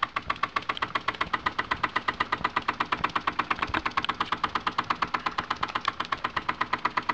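Wilesco D6 model steam engine running steadily, a fast, even ticking of about eight beats a second, with its flywheel coupled to drive a small generator.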